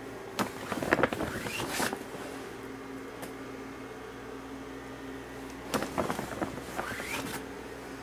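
Sand being scooped and sprinkled over a freshly sown bed: two short bouts of scraping and rustling, each ending in a rising scrape. A faint steady hum runs underneath.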